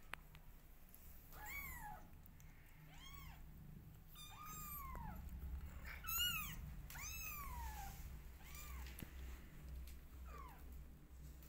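Young kittens mewing: about seven thin, high-pitched cries, each rising then falling, a second or so apart. A low steady purr runs underneath from the middle on.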